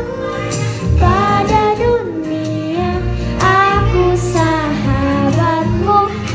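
A young girl singing a melody into a microphone, in phrases, over instrumental accompaniment with a steady low bass.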